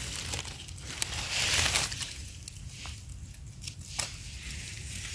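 Dry leaf litter crunching and rustling as a knife digs a mushroom out of the forest floor, in two bursts during the first two seconds. After that come a few light clicks and scrapes as the knife works the soil off the mushroom's stem.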